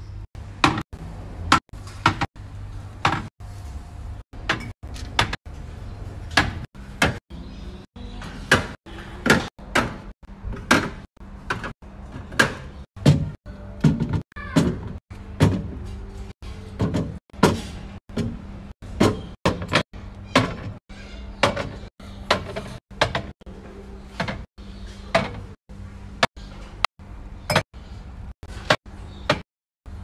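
Glass and plastic drink bottles being set down one after another on refrigerator shelves, a sharp knock or clink about every second, over a steady low hum.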